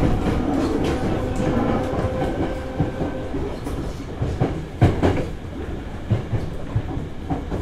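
A Hankyu 8000 series electric train heard from inside the car while running. The wheels click over rail joints, in a sharp pair just before five seconds in, and a steady hum fades out about three seconds in.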